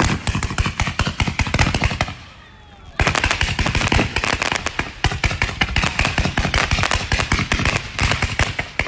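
A string of firecrackers going off in a rapid, dense run of cracking bangs, like machine-gun fire. The bangs stop for about a second, two seconds in, then a second run starts and continues unbroken.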